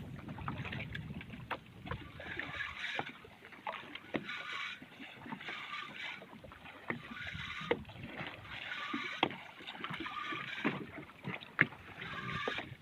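Water splashing and washing in short surges every second or two, with scattered sharp clicks.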